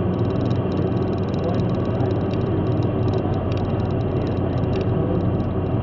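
Steady road and engine noise inside a car cruising on a motorway, with a low hum, and a fast, irregular high-pitched chatter over it.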